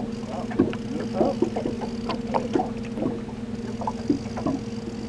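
Steady hum of a small outboard motor pushing a boat at trolling speed, with irregular light knocks and taps over it.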